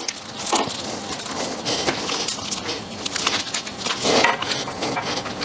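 Irregular clicks, knocks and rustling of hand tools and parts being handled while the oil-cooler water lines are taken off the engine.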